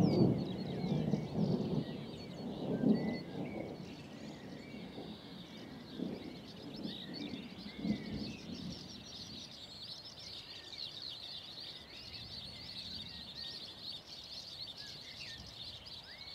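Distant thunder rumbling and dying away, with further low rolls about 3, 6 and 8 seconds in, while songbirds chirp and trill steadily over it.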